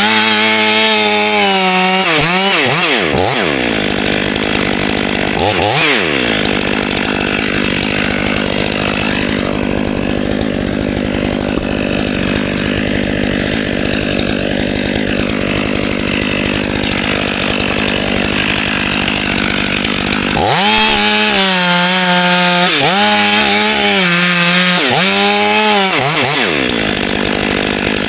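Two-stroke chainsaw revving up and down, then running at full throttle through a long cut in the cherry wood, then revving up and down again near the end.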